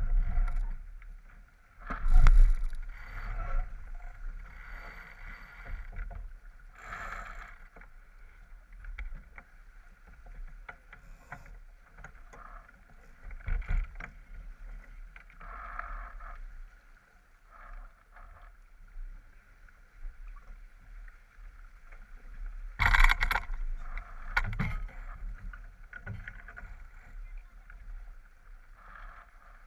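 Water rushing along the hull of a J24 sailboat under way, with wind buffeting the microphone: a steady low rumble with hissing swells. Two brief loud bursts, about two seconds in and again about three quarters of the way through.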